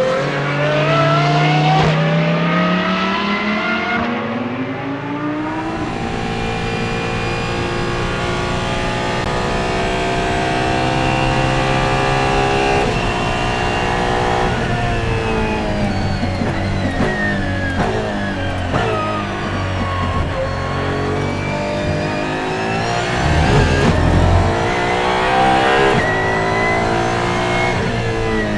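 Apollo Intensa Emozione's 6.3-litre naturally aspirated V12 at speed, its pitch climbing under acceleration. About halfway through the revs fall for several seconds as it slows, then climb again.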